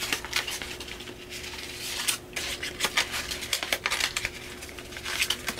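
Stiff paper cards and packaging being handled, giving irregular small clicks, taps and rustles.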